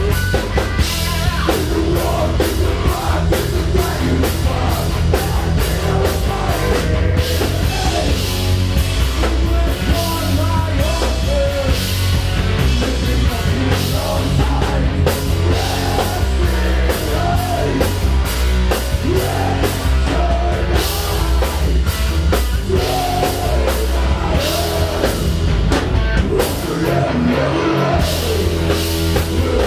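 Live rock band playing loud, heavy rock: electric guitar and bass over a driving drum kit, with a singer's voice.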